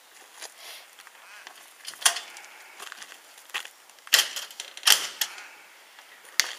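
Clicks and clattering knocks of a horse float's caravan-style mesh fly-screen door being unlatched and swung open, with louder knocks about two, four and five seconds in.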